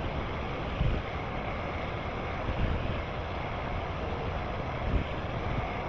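Steady rushing noise of a car running with its air conditioning on, the blower pushing air from the vents, with two brief low thumps. The system is low on refrigerant and not blowing cold.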